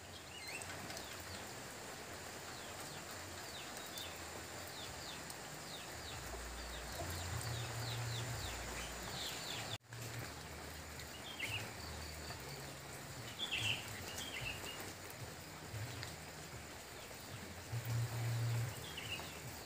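Steady hiss of light rain falling, with small birds chirping again and again throughout and a few low rumbles. The sound drops out for an instant about halfway through, then carries on.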